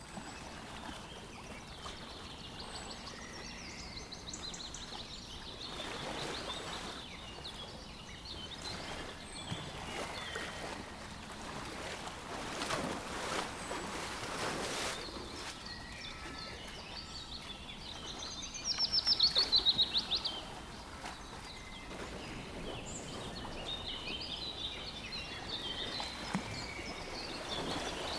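Several wild birds chirping and singing over a steady outdoor hiss, with a few swells of rushing noise in the middle. A loud, rapid trill rises above the rest about two-thirds of the way through.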